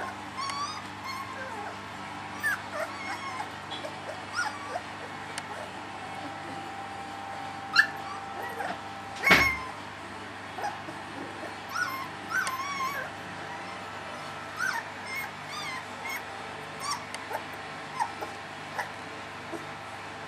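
Three-week-old Dalmatian puppies whimpering and squeaking: short, high-pitched cries scattered throughout, with one louder sharp sound about nine seconds in.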